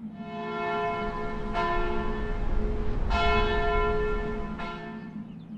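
A church bell tolling: four strikes about a second and a half apart, each ringing on and fading before the next.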